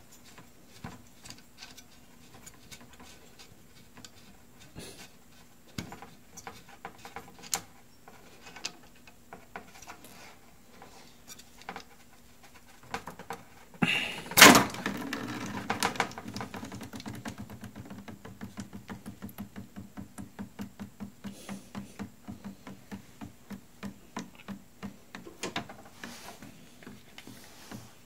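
Clicks and knocks of a refrigerator water inlet valve's plastic body and metal mounting bracket being handled and separated, with one loud knock about halfway through. After it, a low steady hum with a fast, even ticking of about three a second.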